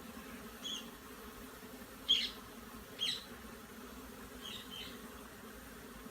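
Honeybee swarm humming steadily. A few short high chirps come through: two louder ones about two and three seconds in, and fainter ones before and after.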